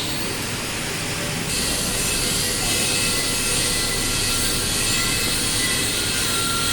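TIG welding arc burning steadily: a continuous hiss with faint high tones in it.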